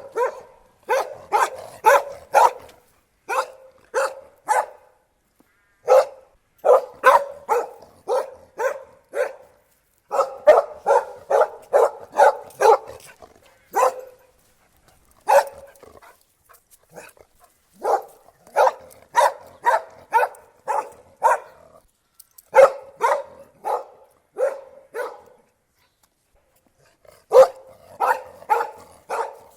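Dog barking repeatedly: runs of quick, sharp barks, two to three a second, broken by short pauses.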